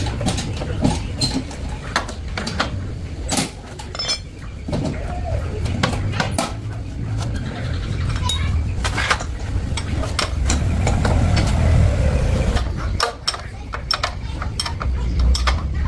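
Metal tools and parts clinking and knocking against each other many times, over a steady low rumble.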